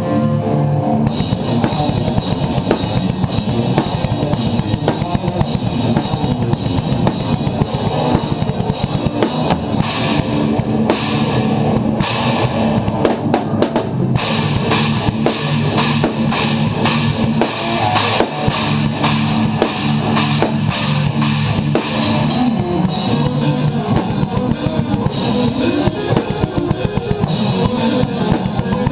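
A drum kit played in a progressive metal song: rapid bass-drum strokes and crashing cymbals over the band's music, with sustained low notes underneath.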